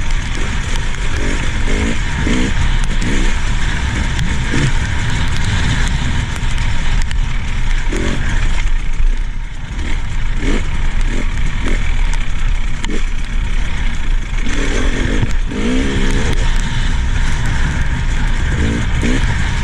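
Two-stroke engine of a new 2019 KTM 300 XC-W TPI dirt bike, still being broken in, revving up and down under throttle while riding a rough trail, with a loud rushing noise throughout. The engine eases off briefly about nine seconds in, then picks up again.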